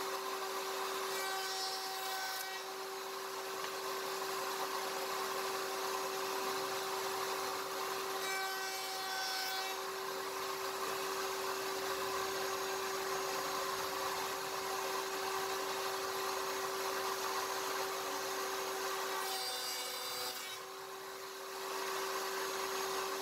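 Router motor on a CNC router table running steadily with a constant high hum. Three times (about a second in, around eight seconds in, and near the end) the dovetail bit cuts into the end of a wooden board with a rougher cutting noise.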